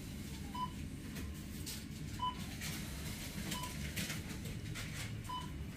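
Four short electronic beeps from a supermarket checkout barcode scanner, each at the same pitch and spaced irregularly over about five seconds, over a steady low store hum with faint clicks.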